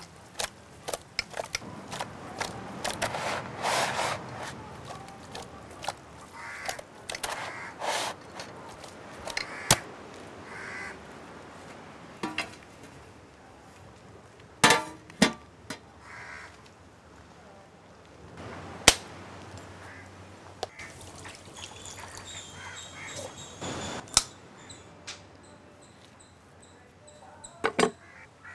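Scattered sharp clicks and knocks of food and utensils being handled, with birds calling now and then in the background.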